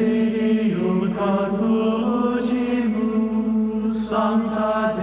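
Slow choral music in a chant style, voices holding long notes over a sustained low note, changing pitch every second or so.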